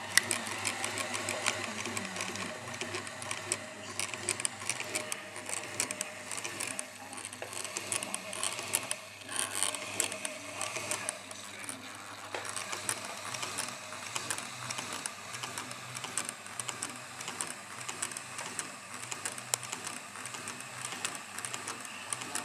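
IKEA SY sewing machine running with its covers stripped off, the exposed mechanism clattering steadily in a fast, even rhythm over a low motor hum.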